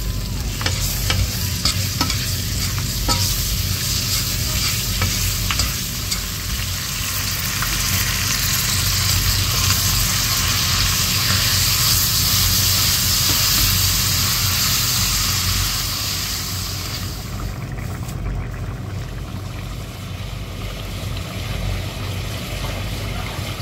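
Sauced pork ribs and vegetables sizzling in a stainless steel pan while being stirred, the spatula clicking and scraping against the pan. About 17 seconds in the sizzle cuts off, leaving a quieter sound over a steady low hum.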